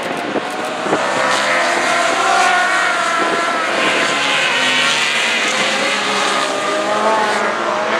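A pack of racing motorcycles passing at high revs, several engines at once, their pitches rising and falling as they accelerate and shift.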